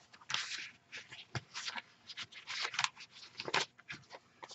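Paper rustling and sliding in short, irregular bursts as loose sheets, tags and card are handled and tucked into a paper pocket of a handmade junk journal.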